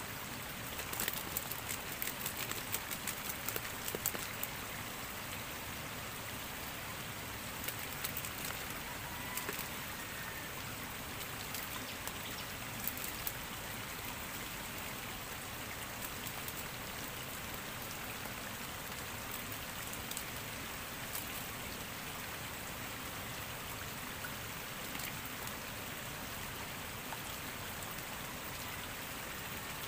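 Steady rushing of a small shallow stream, with scattered light taps and clicks in the first few seconds and again about ten seconds in.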